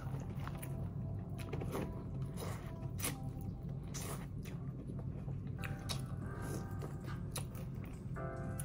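Quiet eating sounds from a seafood boil: soft chewing with scattered small clicks and taps, over a low steady hum.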